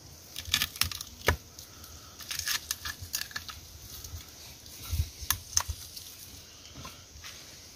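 Hands tearing the gills out of a freshly scaled common carp: scattered wet crackles and snaps as the gill arches are pulled loose, in several short clusters.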